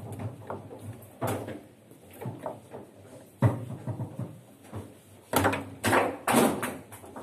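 Foosball table in play: irregular sharp knocks and clacks of the ball being struck by the men on the rods and hitting the table, with a quick run of loud knocks near the end.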